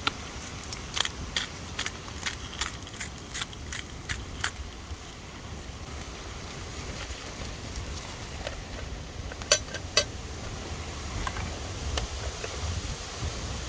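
Strong wind buffeting the microphone in a steady low rumble. Over it comes a run of sharp clicks, about three a second, over the first four seconds or so, then two louder clicks about half a second apart near the ten-second mark.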